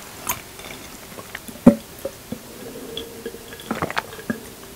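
Close-miked mouth sounds: small lip and tongue clicks, with one sharp, loud click about a third of the way in. Near the end, sipping and swallowing begin as an iced drink is drunk from a glass jar.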